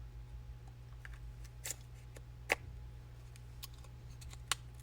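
A few sharp little plastic clicks and taps from handling a GoPro Max camera while fitting its battery, the loudest about halfway through, over a steady low hum.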